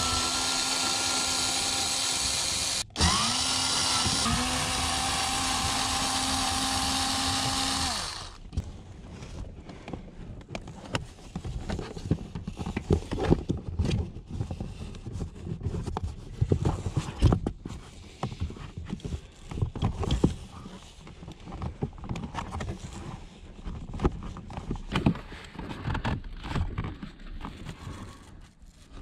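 Cordless electric screwdriver running at a steady whine on the screws of a plastic footwell trim panel; it spins up at the start, cuts out and spins up again about three seconds in, and stops about eight seconds in. After it come irregular clicks and knocks of the plastic trim panel and cabin-filter cover being handled.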